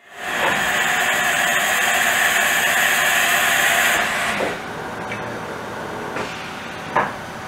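Haas EC-2000 automatic tool changer cycling: a loud, steady mechanical whir that drops in level about four seconds in as the double-ended changer arm swings, with a sharp clunk near the end.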